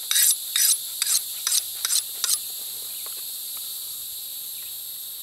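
Kukri blade drawn along a diamond sharpening rod in quick scraping strokes, about three a second, that stop about two and a half seconds in. A steady high chirring of insects runs underneath.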